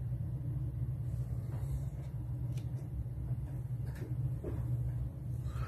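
Steady low background hum of room tone, with a few faint light taps.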